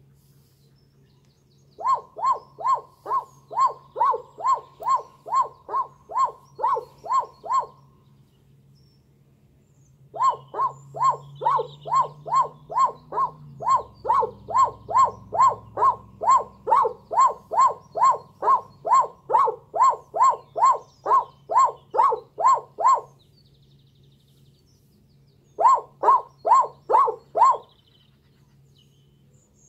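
Unidentified animal giving a long, even series of short barking calls, about two and a half a second, in three bouts with pauses between them.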